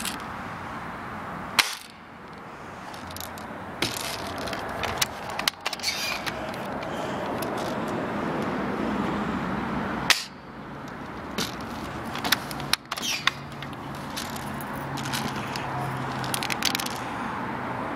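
M4-style airsoft BB gun firing single shots: sharp snaps, the loudest about two seconds in and again about ten seconds in, with smaller clicks between them, over steady background noise.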